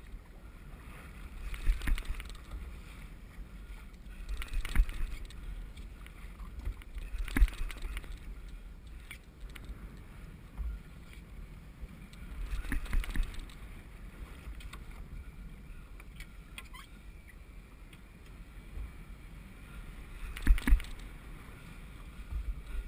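Wind buffeting the microphone and small waves slapping against the hull of a small open boat, with a handful of louder slaps spread irregularly through.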